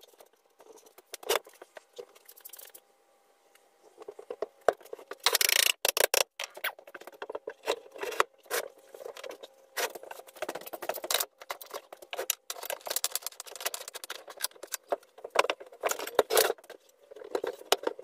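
Wooden cabinet panels and clamps being handled during a glue-up: irregular knocks, clicks and rattles of boards being fitted together, with a louder burst of rattling about five seconds in.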